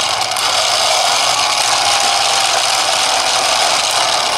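Battery-powered toy car-track booster running, its small electric motor and spinning launch wheels giving a loud, steady whirring.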